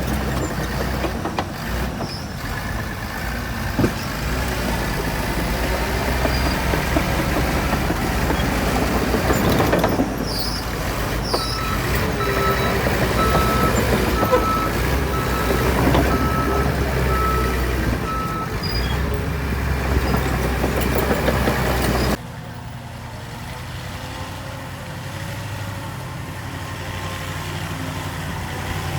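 Heavy diesel earthmoving machinery running with a deep engine rumble, with a short hiss near the 10-second mark. From about eleven seconds in, a backup alarm beeps steadily for around seven seconds. A little over twenty seconds in the sound drops abruptly to a quieter engine running at low revs.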